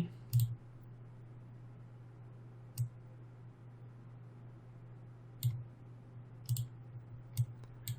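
Scattered single clicks from a computer mouse and keyboard, about six, spaced irregularly, over a faint steady low hum.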